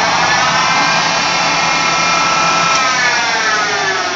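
Harbor Freight 1.5 horsepower mill's spindle running at its fastest speed, a steady motor whine, just after being switched into reverse. About three seconds in it is switched off and winds down, the whine falling in pitch.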